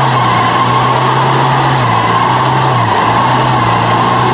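A vehicle's engine running at a steady speed with road noise, a steady drone whose pitch dips slightly about two seconds in.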